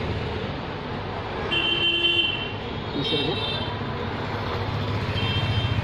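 Steady low rumble of background traffic, with three short, high-pitched horn-like toots at about a second and a half, three seconds and five seconds in.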